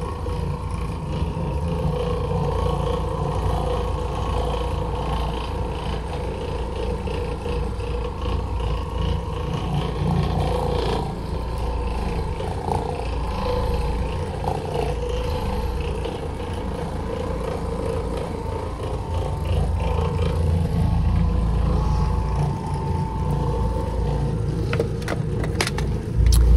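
XL Pro floor machine running steadily as its pad scrubs the carpet, a low motor hum. A few sharp clicks come near the end.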